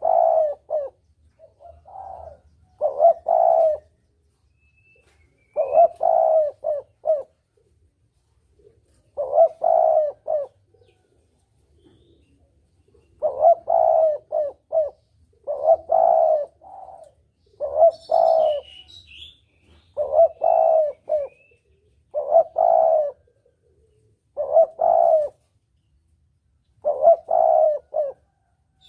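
Spotted dove cooing its phrase over and over, one phrase every two to three seconds, each a short run of low coo notes; a lure call for drawing in wild doves. A faint higher chirp comes about two-thirds of the way through.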